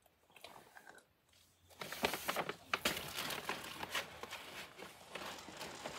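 Brown paper bag crinkling and rustling as it is handled, with a thick run of sharp crackles starting about two seconds in.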